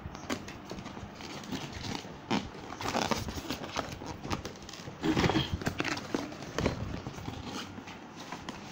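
Cardboard drill box being handled and opened: irregular knocks, taps and rustling of cardboard and packing, loudest about three seconds in and again around five seconds in.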